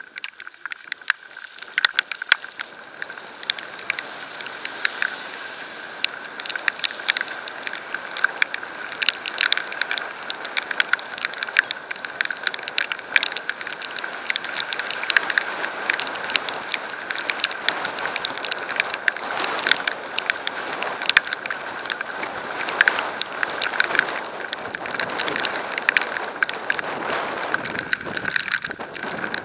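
Heavy rain drumming on a camera mounted on a moving bicycle: a dense, irregular patter of drops striking the housing like hail, over a steady rush of wind and wet road noise that drops off sharply near the end.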